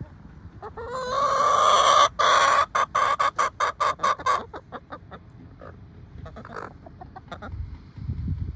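Chickens calling: one long, loud rising call, then a fast run of short clucks about six a second, followed by softer scattered clucking.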